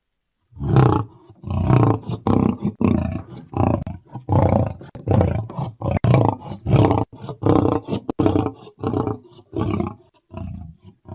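Lion roaring: a long series of deep grunting roars, about one a second, each a short separate burst.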